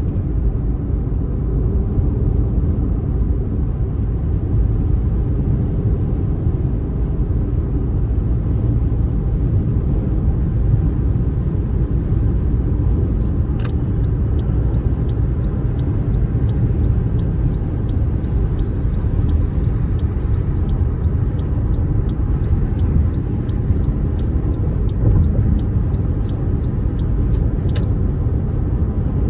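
Car driving along with a steady low road rumble. Two sharp clicks occur about halfway through and near the end, and faint, evenly spaced ticking runs between them.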